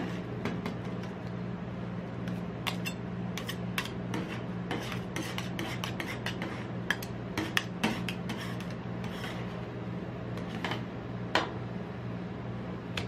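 Metal spatulas scraping, chopping and tapping on the frozen steel plate of a rolled-ice-cream pan while orange-drink ice cream mixture is worked, with sharp clicks of the blade edges on the metal at irregular intervals over a steady low hum.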